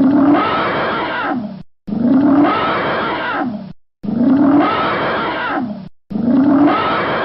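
Elephant trumpeting, the same call of about two seconds repeated four times with short silences between, each starting abruptly: a looped sound effect.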